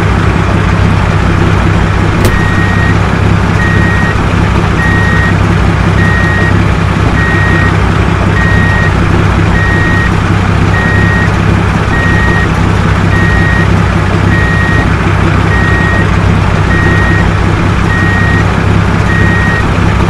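Heavy truck engine running steadily, with its reversing alarm beeping at an even pace of about three beeps every two seconds, starting a couple of seconds in.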